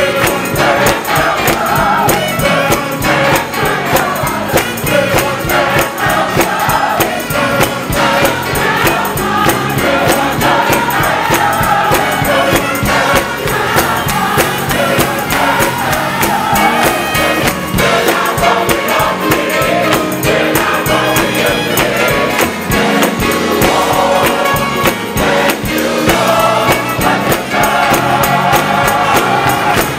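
Gospel choir and congregation singing together, with hand clapping on a steady beat.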